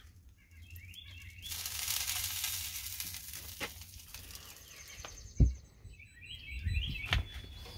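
A hiss lasting about two seconds, then a single loud thump about five seconds in, typical of an insulated metal smoker door being shut; birds chirp faintly around it.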